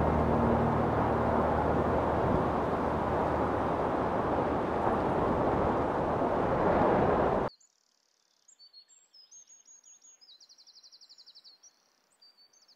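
A loud, steady rushing noise like wind cuts off suddenly about seven and a half seconds in. Faint songbird chirps follow, with one fast trill.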